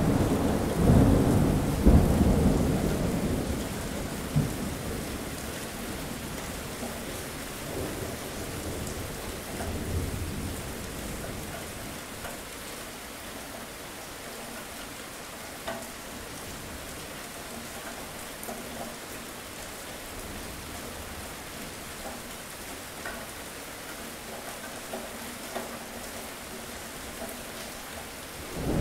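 Thunderstorm: a long rolling thunder rumble that dies away over the first few seconds, a weaker rumble around ten seconds in, then steady rain, with a new thunder rumble breaking in at the very end.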